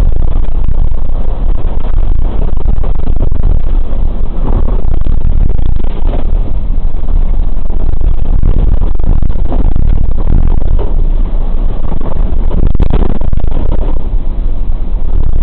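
A vehicle driving on a wet, muddy road, recorded from inside the cab: loud, steady engine and road noise with most of the sound low down and occasional knocks.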